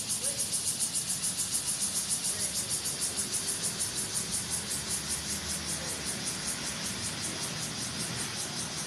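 Cicadas buzzing in a steady, high-pitched chorus that pulses about five or six times a second, over a low background rumble.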